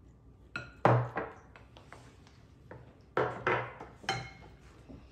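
Spoons knocking and scraping against glass mixing bowls as a thick foamy slime mixture is stirred, with a few separate clinks and thuds, the loudest about a second in.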